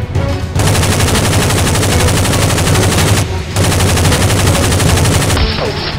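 Rapid automatic gunfire sound effect in two long bursts, starting about half a second in, with a short break around three seconds in.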